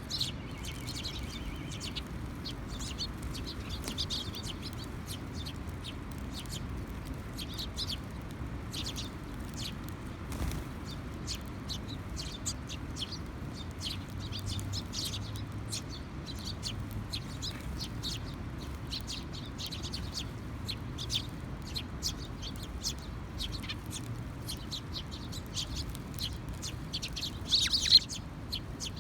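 Sparrows chirping: many short, high chirps throughout, with a louder flurry of chirps near the end, over a low steady background rumble.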